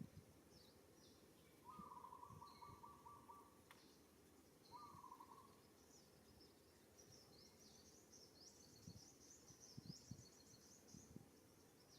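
Faint bird calls: two held, slightly wavering notes in the first half, then a run of high, quick chirps in the second half, over soft rustling.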